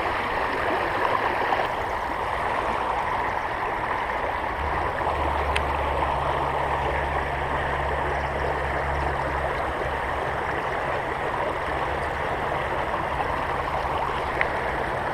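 Creek water rushing steadily over a current. A low steady hum joins about five seconds in.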